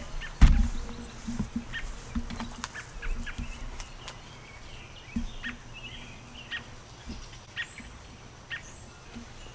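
Short bird chirps repeating about once a second over faint outdoor background, with a single sharp thump about half a second in.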